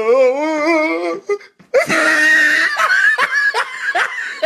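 A drawn-out wavering pitched sound lasting about a second, then after a short gap a person laughing in quick repeated bursts.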